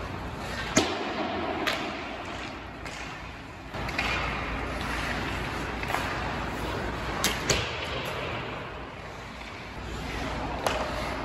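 Ice hockey skates scraping and carving on rink ice, with about five sharp clacks of stick and puck: the loudest about a second in, another near two seconds, two close together past seven seconds, and one near the end.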